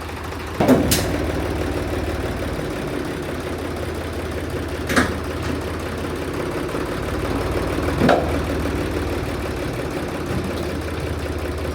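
An engine idling steadily, with three short clanks: about a second in, around five seconds, and around eight seconds.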